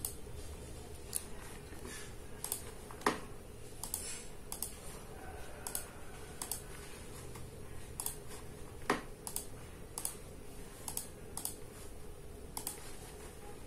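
Computer mouse buttons clicking at an irregular pace, about twenty clicks with two louder ones, over a faint steady hum.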